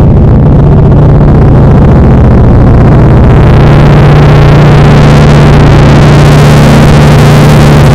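Deliberately overdriven, clipped audio at maximum loudness: a dense wall of distorted noise over a steady low drone, cutting in suddenly, with the hiss growing brighter about three seconds in.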